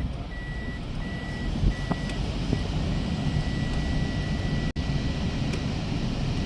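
A high electronic beep, in short pulses at first and then held almost without a break, over a steady low rumble.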